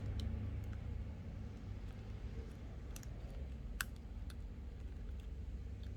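A few faint, sharp clicks of small parts and tools being handled while a component is fitted into an opened iPhone 12, the clearest a little after three seconds and near four seconds, over a low steady rumble.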